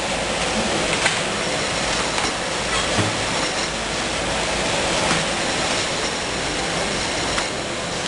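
Sleeve shrink-wrapping machine and roller conveyor of a packaging line running: a steady mechanical hiss and rumble with faint scattered clicks and knocks.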